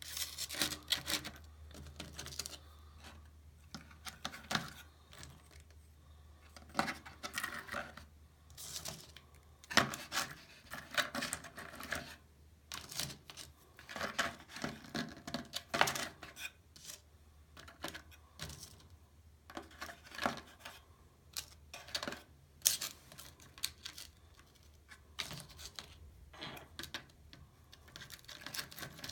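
Rock specimens clicking and clacking against one another as they are picked up and set down, in irregular clusters of sharp knocks, over a faint low hum.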